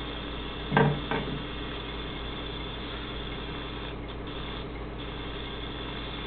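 Steady low hum and hiss of an old video recording, with two short, pitched sounds close together about a second in.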